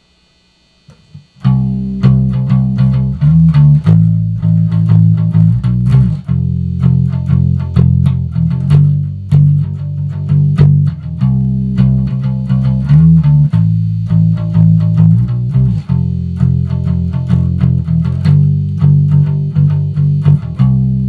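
Squier Affinity Precision Bass played with a pick, with the tone knob turned all the way up. After about a second and a half of quiet it plays a steady riff of picked notes that repeats.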